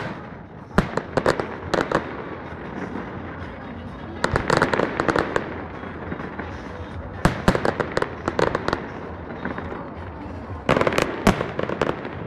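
Aerial fireworks display: volleys of sharp bangs and crackling shell bursts come in clusters about a second in, around four to five seconds, seven to nine seconds, and near eleven seconds. A steady rumbling haze fills the gaps between them.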